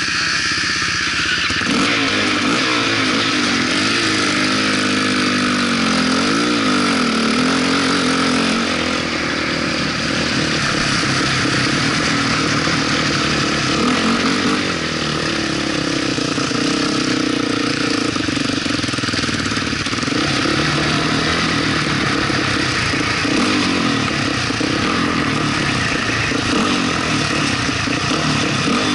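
Sport quad (ATV) engine running under throttle while riding over sand, its revs rising and falling over a steady rush of noise.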